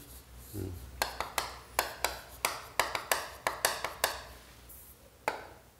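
Chalk tapping and scraping on a chalkboard as a circuit diagram is drawn: a run of sharp clicks, about three a second, then one more near the end.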